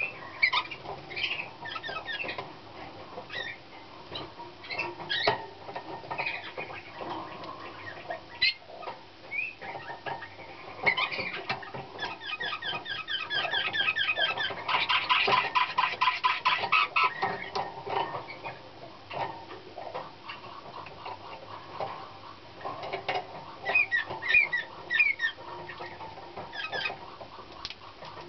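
Young male Slavujar (nightingale-song) canary singing: short chirped and whistled phrases, with a long fast rolling trill about halfway through, then a few more phrases near the end.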